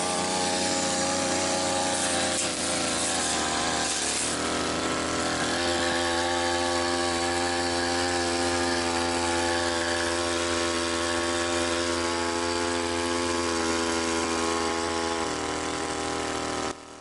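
Brush cutter engine running at high throttle with weeds wound around its blade, its pitch wavering for the first few seconds and then holding steady. The sound changes near the end and drops off suddenly just before the end.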